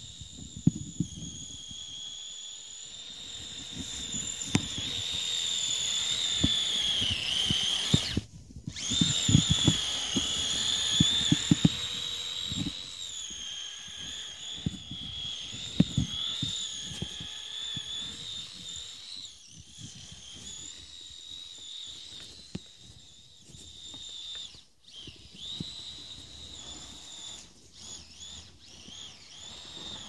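Kyosho Blizzard RC snowcat's electric motor and gear drive giving a steady high whine whose pitch sags and rises with the throttle, cutting out briefly twice. Irregular low knocks and clicks run under it.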